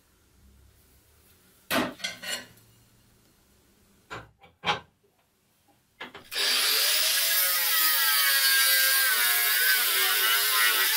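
Angle grinder with a thin cut-off disc cutting through an aluminium strip clamped in a bench vise, a loud steady grind whose whine wavers in pitch as the load changes, starting about six seconds in. Before it, a few knocks and clanks as the strip is set in the vise.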